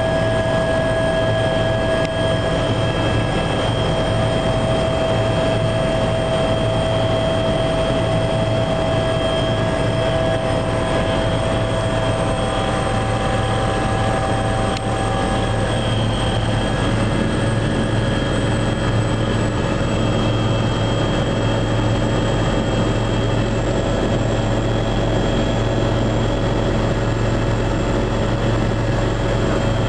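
Helicopter cabin noise in flight: the turbine engines and rotors make a steady drone with a strong low hum and several constant whining tones. One high whine drops slightly in pitch about two-thirds of the way through.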